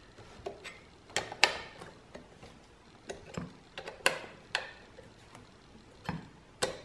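Light metallic clicks and taps of a long Allen key being seated in socket-head bolts on a stainless steel bracket and turned to snug them up, coming irregularly about every half second to second.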